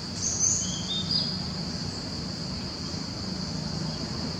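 Steady high-pitched drone of insects, with a few short high chirps in the first second or so.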